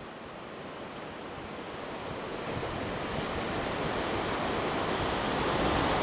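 Ocean surf below a cliff, an even rushing that swells steadily louder, with some wind mixed in.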